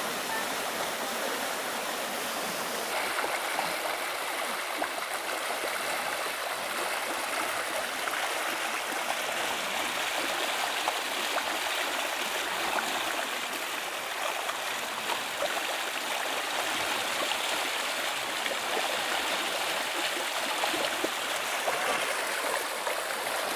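Muddy storm floodwater rushing steadily down a stone-walled ravine channel, the ravine running in spate.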